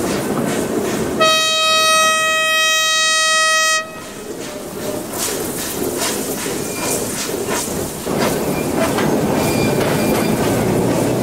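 SY-class 2-8-2 steam locomotive giving one long blast on its steam whistle, a single steady note, starting about a second in and lasting about two and a half seconds. Around it and after it come the loco's hissing steam and exhaust beats as it works a passenger train away from the station.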